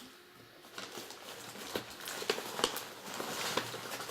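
Scattered small clicks and taps with some rustling, objects being handled.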